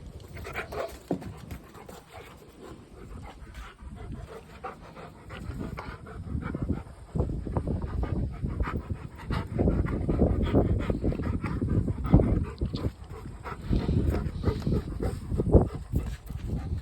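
Rottweiler panting during play, with scattered knocks and rustling; it grows louder about seven seconds in.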